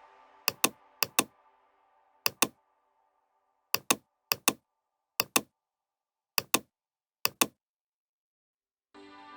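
Background music fading out over the first two seconds, then eight pairs of sharp computer clicks spaced unevenly over silence. Music starts again near the end.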